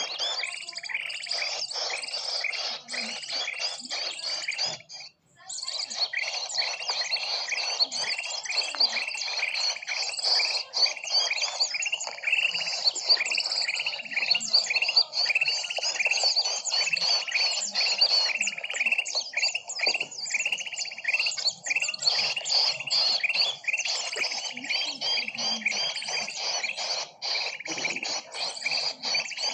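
Bird-lure recording of many small birds chirping and calling at once, a dense, unbroken chatter of quick high chirps. It cuts out for a moment about five seconds in.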